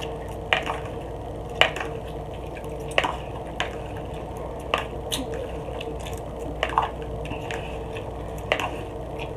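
A person eating instant ramen noodles with a fork from a plastic bowl: wet slurping and chewing with irregular short smacks and clicks, over a faint steady hum.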